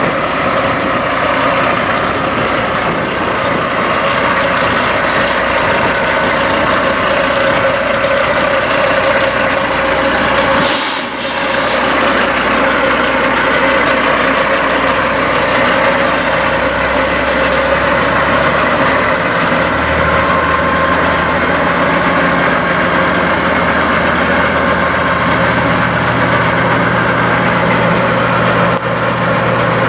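Diesel semi truck idling steadily, with a sharp air-brake hiss lasting about a second, roughly eleven seconds in. The low engine note changes a couple of times later on.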